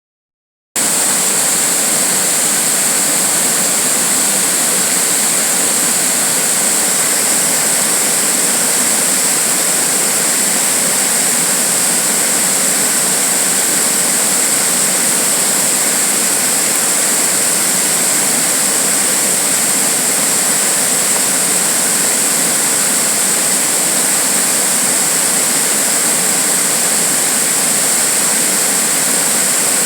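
Steady rushing water, a loud unbroken hiss with no rhythm, coming in suddenly under a second in.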